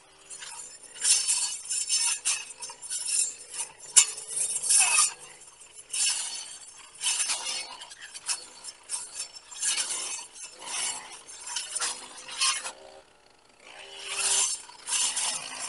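Brush cutter with a circular saw-tooth blade slashing through tall weeds and stems, a hissing, clinking swish about once a second as it is swung back and forth, with a short pause near the end.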